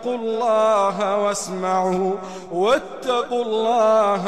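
A man reciting the Quran in melodic chanted tajweed, holding long notes that waver in pitch, with a quick upward glide about two and a half seconds in.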